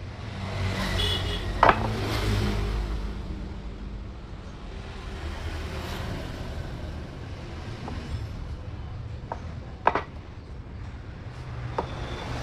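Wooden chair-frame parts knocking as they are fitted together, a sharp knock about two seconds in and two more near the end, over a low steady rumble.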